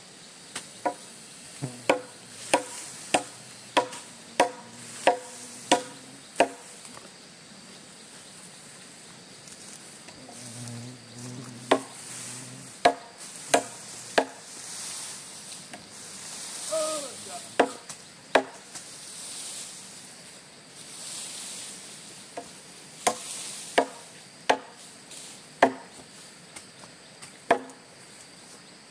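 Repeated chopping strikes. A run of about eight evenly spaced blows, roughly one every two-thirds of a second, comes a couple of seconds in, and scattered blows follow. A steady high insect drone runs underneath.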